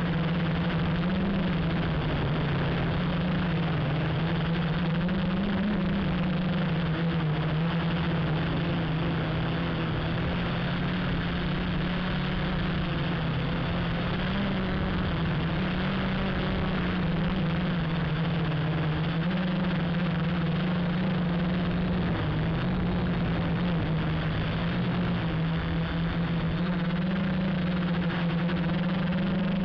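Q450 quadcopter's brushless motors and propellers humming in flight, heard close up from its onboard camera, over a steady rush of air. The hum's pitch rises and dips slightly every few seconds as the throttle changes.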